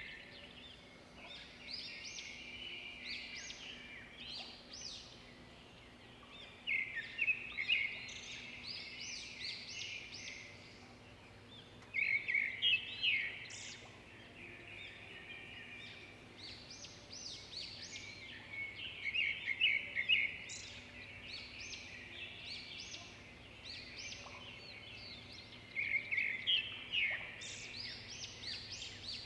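Small birds chirping in quick high twittering runs, loudest in bursts every six or seven seconds, over a faint steady hum.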